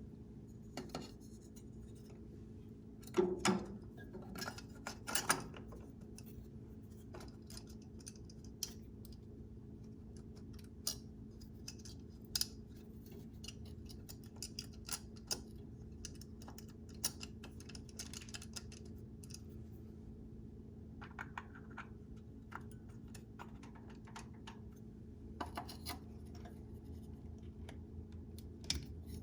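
Scattered small clicks, taps and scrapes of Ford Model A distributor parts being handled and fitted by hand, with a few louder knocks a few seconds in, over a faint steady hum.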